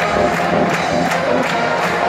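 Pep band playing, with brass and sousaphones holding notes over a steady beat about twice a second, and an arena crowd cheering underneath.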